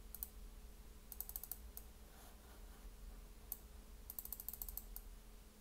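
Faint computer mouse clicks in quick runs: a rapid burst about a second in and another just past four seconds, with a few single clicks between. A low steady electrical hum sits underneath.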